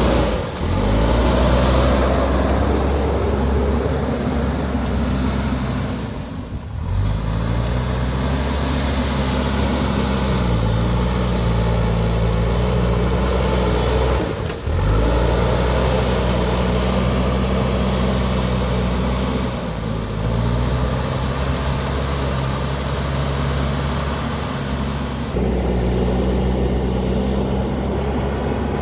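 JCB backhoe loader's diesel engine running hard, its pitch rising and falling as the revs change, with sharp breaks about half a second, seven and fifteen seconds in.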